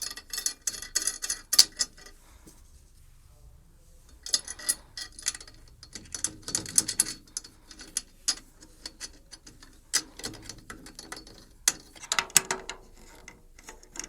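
Irregular clicks and light metallic clinks of small hardware being handled: nuts and bolts for a drum tom mount. There is a short lull about two seconds in.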